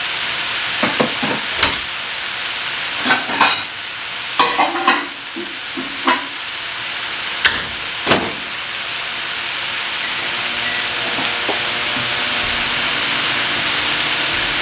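Stir-fry vegetables sizzling steadily in a hot wok, with a few sharp knocks and clatters in the first half.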